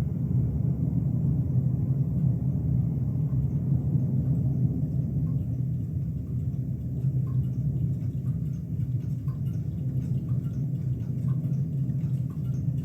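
Sony TC-FX707R cassette deck running between tracks, with no music: a steady low hum, joined from about halfway through by faint, evenly spaced ticks, roughly one or two a second.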